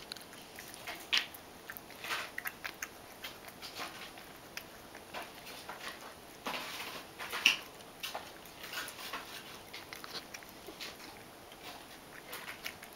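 Ragdoll cat eating dry kibble from a bowl: irregular crisp crunches and chewing clicks, a few louder than the rest.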